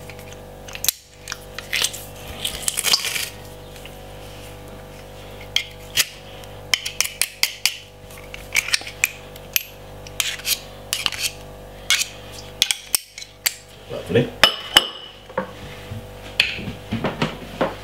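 Stainless steel garlic press tapping and scraping against a stainless steel mixing bowl as crushed garlic is knocked and scraped out of it: a long run of sharp metal clicks, with a stretch of scraping about two to three seconds in.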